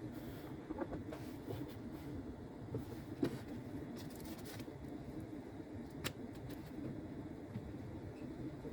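Steady low background hum of room ambience, broken by a few faint small clicks or taps, the clearest about three and six seconds in.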